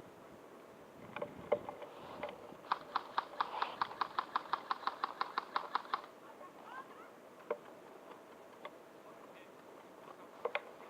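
Airsoft gun firing a rapid burst of evenly spaced shots, about seven a second for some three seconds, with a few single shots and clicks before and after.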